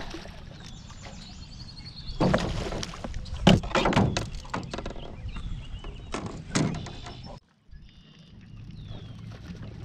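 Several knocks and thuds on a small fishing boat: a cluster about two to four seconds in and one more near six and a half seconds, over a steady low hum.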